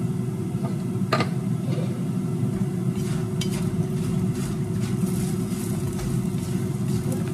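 Food sizzling in a pan on a hot stove over a steady low hum, with a sharp click about a second in and a few lighter clicks later.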